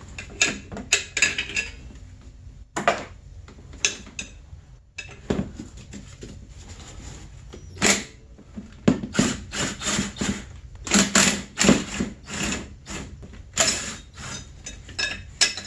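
Cordless drill/driver backing out the bolts that hold the recoil pulley on a snowmobile's two-stroke engine, in many short, irregular bursts and clicks of metal, which come thicker in the second half.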